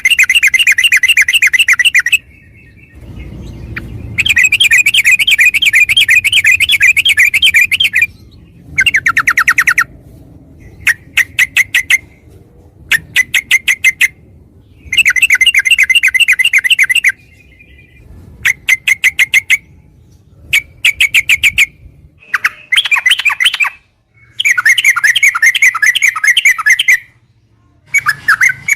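Yellow-vented bulbul (trucukan) singing loudly in long rolling trills of rapidly repeated notes, each one to three seconds long, broken by short series of separate sharp chattering notes.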